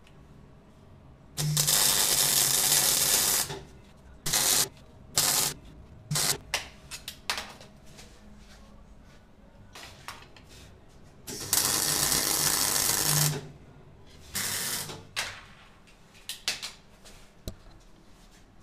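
Stick (arc) welder crackling and hissing as the rod strikes and burns against steel: two runs of about two seconds each, one a second and a half in and one about eleven seconds in, with several short strikes between and after.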